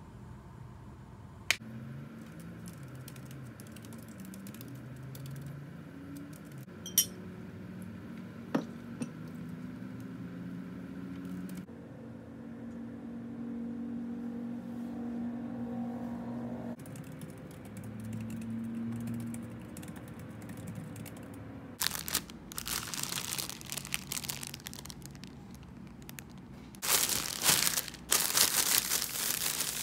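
Packaging being handled, crinkling and rustling in ragged bursts that start about three-quarters of the way through and get louder near the end. Before that there is only a faint low hum with a few sharp clicks.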